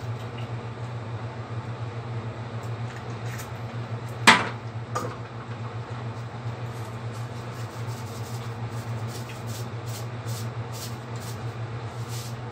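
Eggs frying in oil in a nonstick pan, a faint crackle of small pops over a steady low hum. A sharp knock comes about four seconds in, then a lighter one.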